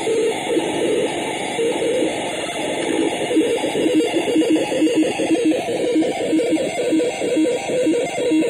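Experimental electronic noise machine putting out loud, harsh noise: a dense, distorted texture with a pulsing pattern of two alternating pitches, about two pulses a second, which grows clearer about three seconds in.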